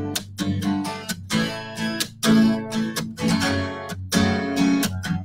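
Steel-string acoustic guitar strummed in a steady rhythm, capoed at the second fret, the chords ringing between strokes.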